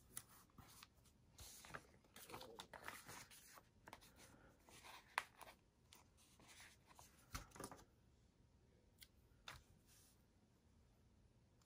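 Faint paper rustling and crackling from stickers being peeled off a sticker sheet and pressed onto planner pages. The sounds come in short, irregular bursts, busy for the first several seconds, then only a few isolated ticks near the end.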